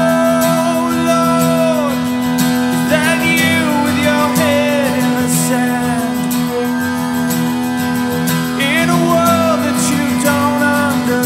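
Demo song: strummed acoustic guitar under a male voice singing long held notes in phrases, over a steady low held note.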